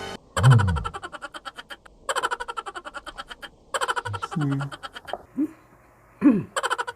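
A man burping several times in a row, each burp a rapid creaky rattle. The loudest burps, about half a second in and again near the end, drop sharply in pitch.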